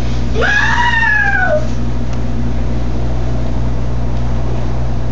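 A cat meowing once near the start, one long call that rises and then slowly falls, over a steady low hum.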